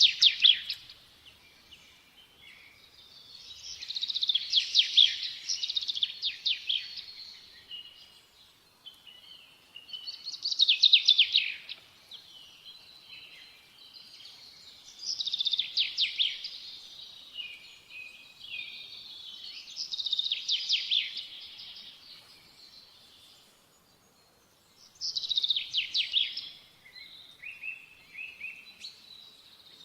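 Songbird singing: phrases of rapid, high chirping notes, each a second or two long, repeated about every five seconds.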